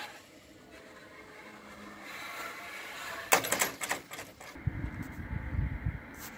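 Railway level-crossing barrier arm lowering and coming to rest across the road with a short clattering knock about three seconds in. After that, wind rumbles on the microphone.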